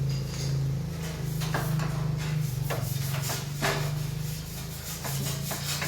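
A steady low hum, with short scraping and rubbing noises on top every second or so.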